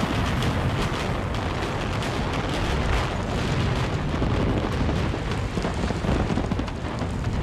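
A multi-storey brick building collapsing in a controlled implosion: a loud, continuous rumble of falling masonry, with sharp cracks mixed in.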